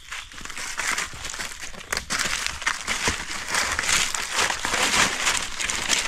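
Footsteps in rubber boots through thick dry fallen leaves, the leaves crackling and crunching underfoot; the crackling starts up about a second in and keeps on.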